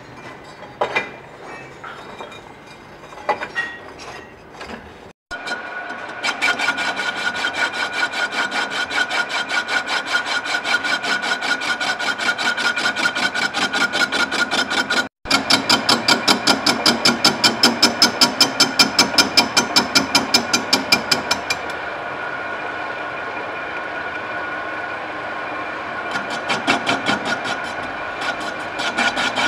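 Metal lathe turning a cast pump part, the cutting tool scraping the spinning workpiece with a rapid, even pulsing and a steady high ring. A few metallic clinks come first, in the opening seconds.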